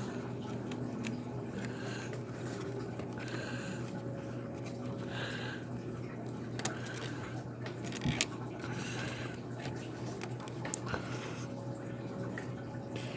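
Faint clicks, scrapes and rustles of hands working small parts inside an opened iBook G4 laptop while a cable is fitted into its port, over a steady low hum. A sharper click comes about eight seconds in.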